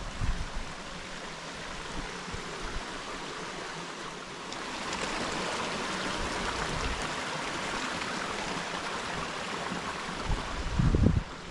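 Mountain stream rushing in a steady wash of water noise that grows louder about four and a half seconds in, then holds. A few low bumps hit the microphone near the start and near the end.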